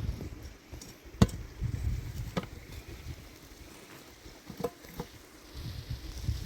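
Wind buffeting the microphone in uneven gusts, with a few sharp knocks, the loudest about a second in and smaller ones near the middle and past it.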